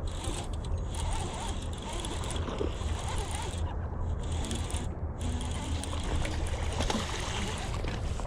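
Baitcasting reel being cranked steadily as a hooked bass is reeled in, with the fish splashing at the surface.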